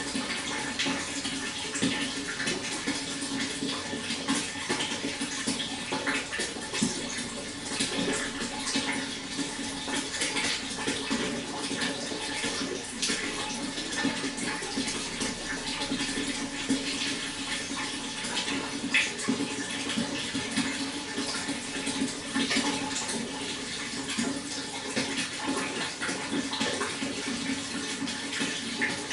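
Water flowing steadily, with a dense patter of small splashes and bubbles throughout.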